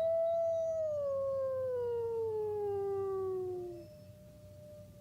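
A dog howling: one long howl that rises quickly, then slides slowly down in pitch for nearly four seconds before it stops.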